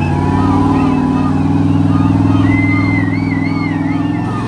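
Engines of rock-crawling rigs running hard under load as they climb a steep rock crack, a steady engine note that swells slightly midway. Voices call out faintly over it.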